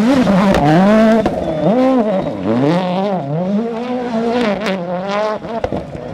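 A rally car's engine revving hard on a stage, its pitch repeatedly climbing and dropping as it goes through gear changes and off and on the throttle, with a few sharp cracks.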